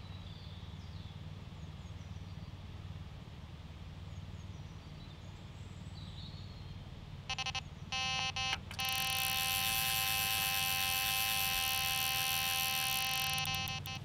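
Sonik Gizmo 2 electronic carp bite alarm sounding: a few short beeps about seven seconds in, then one continuous tone held for about five seconds, the signal of a fish running with the line. Under it, a low steady outdoor background rumble.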